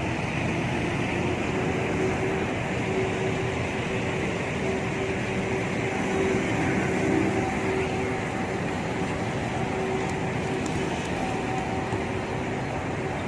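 Steady street noise: a constant hum of traffic and machinery, with a faint steady drone held through most of it.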